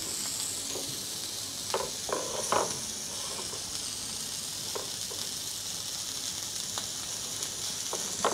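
A spoon scraping and knocking now and then against a ceramic dish as a thick feta and cream cheese spread is stirred and smoothed, over a steady high hiss.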